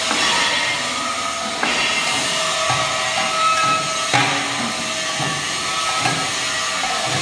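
Heavy-duty double-vibrator block making machine running with a steady metallic rattle. Concrete mix is scraped and pushed across the steel feed box with a long-handled tool, with sharp knocks about one and a half and four seconds in.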